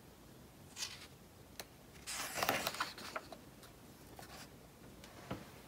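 A page of a hardcover picture book being turned by hand. A short paper rustle and a click come first, then a louder swish of the page about two seconds in, followed by a few fainter rustles and taps as the page settles.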